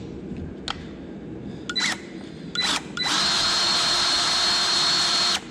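Milwaukee battery-powered grease gun's motor pumping: two short blips of the trigger, then a steady run of about two seconds with a high whine, stopping suddenly. The pump runs while the new grease tube is not yet primed, so no grease is coming out.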